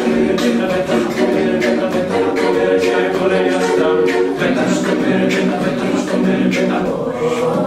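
Mixed-voice a cappella group singing layered harmonies over a steady vocal-percussion beat.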